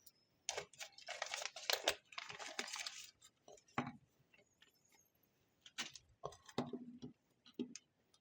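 Small electronics kit parts and their packaging being handled on a desk: a crinkly rustle for the first few seconds, then scattered light clicks and knocks as small hard pieces are set down.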